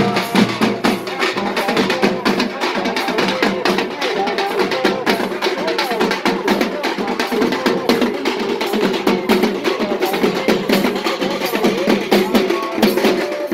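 Drums playing fast, dense beats without a break, with voices mixed in.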